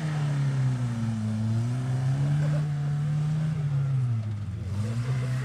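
Suzuki Vitara 1.6's four-cylinder petrol engine working under load off-road, its revs rising and falling, dropping low about four seconds in and climbing again near the end.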